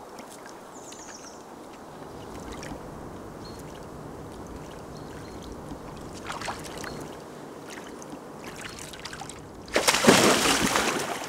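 Stream water lapping and trickling steadily, with small splashes from feet dangling in it. About ten seconds in, a person jumps in, making a loud splash that lasts about a second and a half as he plunges waist-deep.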